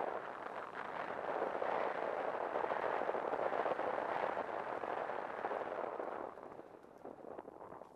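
Wind rushing over a skydiver's helmet-camera microphone as the parachute glides in low toward landing, easing off about six seconds in as the descent slows near the ground.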